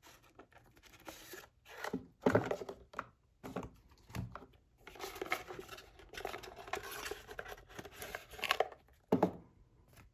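Card stock and cardboard rubbing and scraping as a stack of tarot cards is slid out of a tight-fitting cardboard box, in irregular rustles with a longer drawn-out scrape, and a soft bump near the end.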